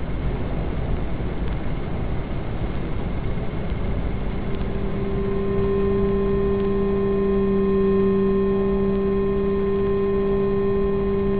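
Steady low rumbling noise. About five seconds in, a chord of held steady tones swells in over it and sustains.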